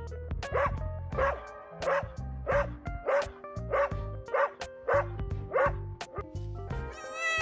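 Dog barking repeatedly, about nine evenly spaced barks at a little under two per second, over background music. A cat's meow begins right at the end.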